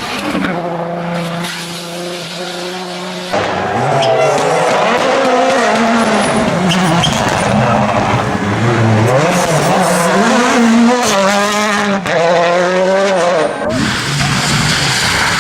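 Rally car engines at speed: first a steady engine note, then from about three seconds in a louder engine revving up and dropping back again and again through gear changes, and near the end a rougher, noisier rush.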